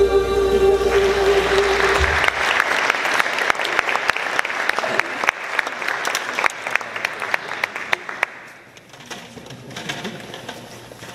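A show choir's final held chord with a low accompaniment note ends about two seconds in, and an audience breaks into applause. The applause keeps up for several seconds, then dies away near the end.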